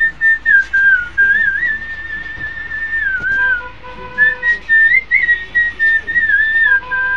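A man whistling a song melody, a clear single-note line that steps and glides between notes with short breaks.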